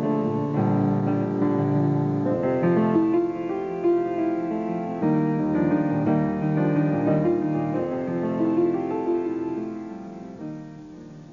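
Piano music playing sustained notes and chords, fading out near the end.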